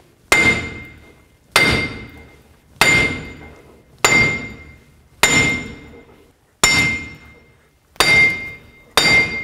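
A hammer strikes the rusted front wheel hub and bearing assembly of a Chevy Silverado about eight times, roughly once a second, to knock the seized bearing loose from the steering knuckle. Each blow is a sharp metallic clang with a brief ring.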